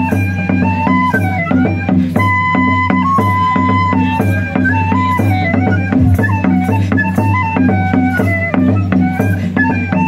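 Live folk band playing a Breton an dro dance tune: a quick melody over a steady low drone, with a regular beat of rattling hand percussion.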